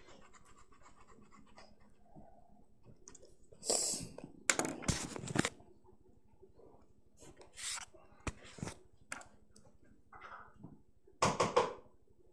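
A ballpoint pen scratching and rubbing on paper in short bursts of strokes, with a few sharp knocks among them, the loudest bursts about halfway through and again near the end.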